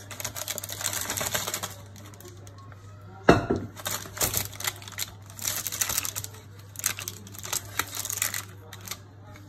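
Crumpled baking paper crinkling and rustling in quick irregular crackles as a silicone spatula spreads crust dough over it, with one sharp knock about three seconds in. A faint steady low hum runs underneath.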